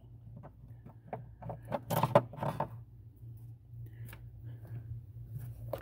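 Small handling clicks and knocks as screws are taken out and a marine circuit breaker is worked loose from its mount, with a cluster of sharper knocks about two seconds in, over a low steady hum.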